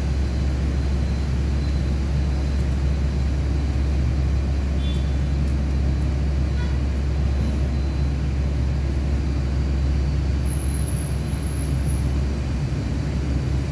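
The engine of a heavy machine running steadily, with an even, low rumble.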